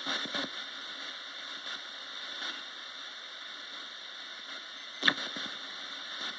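Radio static hissing steadily from a Roberts radio used as a ghost box, broken by brief chopped bursts of sound, the loudest a sharp one about five seconds in.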